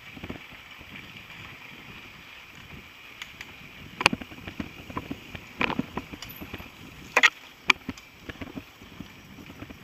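Mountain bike ridden over a rough dirt trail, heard through a camera riding on the bike or rider: a steady hiss with scattered rattles and sharp knocks from the bike jolting over bumps. The loudest knocks come about four seconds in and again twice near two-thirds of the way through.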